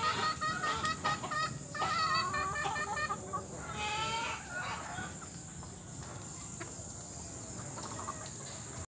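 A flock of chickens clucking, with quick repeated clucks over the first three seconds and a few longer drawn-out calls around four seconds in. The calling thins out after that.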